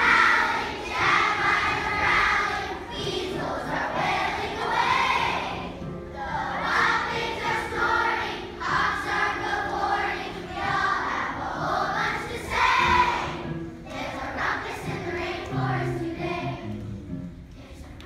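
Large children's choir singing together to music, in phrases of a second or two; the singing dies down over the last few seconds.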